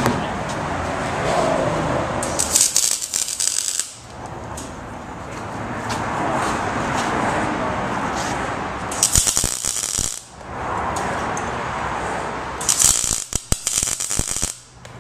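Wire-feed (MIG) welder tack-welding a steel bracket: three short bursts of crackling arc, each a second or so long and several seconds apart. A steady rushing noise fills the gaps between them.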